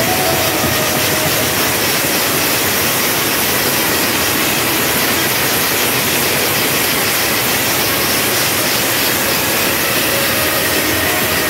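Indian brass band playing loudly: trumpets over a beaten bass drum, merging into a dense, even roar.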